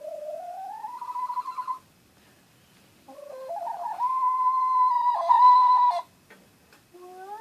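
An animal's long drawn-out howling calls: one rising in pitch over about two seconds, then after a short pause a wavering call held on one pitch for about three seconds, and a new rising call starting near the end.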